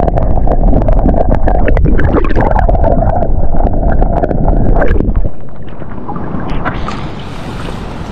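Wind buffeting the microphone: a heavy low rumble with scattered knocks, which drops away about five seconds in to a quieter, steady rushing hiss.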